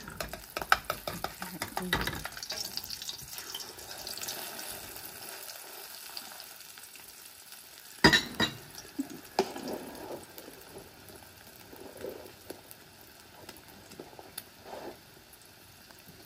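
An omelet sizzling in an aluminium wok, with a metal spatula scraping and clinking against the pan in the first two seconds. A single sharp clank comes about eight seconds in, as the spatula is set down on a plate, followed by fainter clicks over the sizzle.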